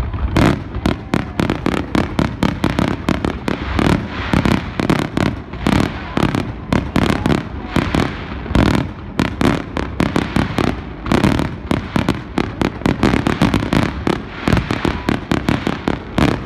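Aerial firework shells bursting in a rapid, unbroken barrage of bangs, several a second.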